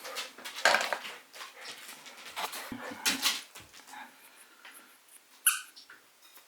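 A Shiba Inu making short breathy huffs and scuffling bursts, with one brief high-pitched squeak about five and a half seconds in.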